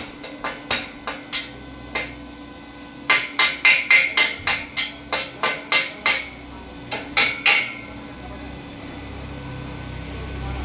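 Stick welding electrode tapped against steel to strike the arc, making a run of short sharp cracks, up to about four a second, that stop about three-quarters of the way through.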